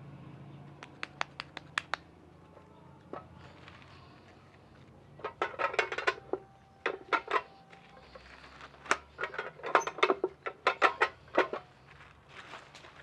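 A tortilla press being worked by hand: clusters of sharp clacks and rattles from the press and its plastic sheet as a ball of corn masa is pressed flat under the lever and the tortilla is peeled off. A few quick sharp taps come about a second in, before the pressing.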